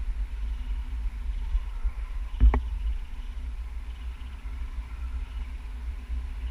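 Wind from a paraglider's flight buffeting the camera microphone, a steady fluttering low rumble, with a single sharp knock about two and a half seconds in.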